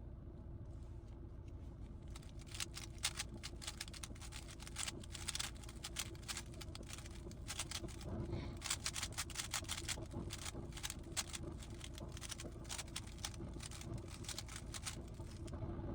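GAN 15 speed cube being turned quickly: a fast, irregular run of small plastic clicks and clacks, starting about a second in.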